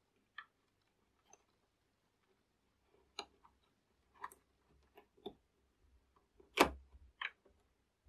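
Light, irregular clicks and plastic ticks of a ribbon cable and wiring being handled and tucked into the plastic chassis of a DeLonghi Magnifica coffee machine. There are about eight short clicks, and the loudest comes about two-thirds of the way through.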